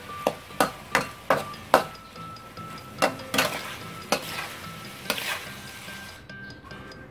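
Spatula scraping and knocking against a metal wok as beef is stir-fried, with a faint sizzle underneath. A quick run of five knocks comes in the first two seconds, then a few more spread out.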